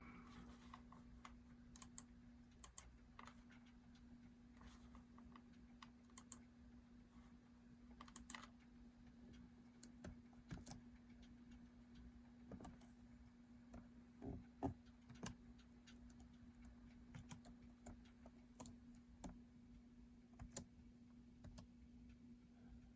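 Faint, scattered clicks of laptop keys being pressed one at a time, over a steady low hum.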